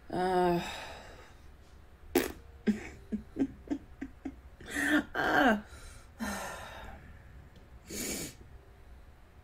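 A woman's wordless vocal sounds: a drawn-out sigh at the start, then a click, several short murmurs and mouth sounds in the middle, and a loud breath out near the end.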